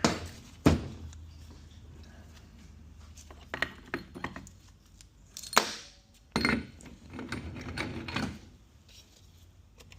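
Steel automatic-transmission parts being handled and set down on a workbench during teardown: a sharp metal clank just under a second in, then scattered clinks and knocks of metal on metal.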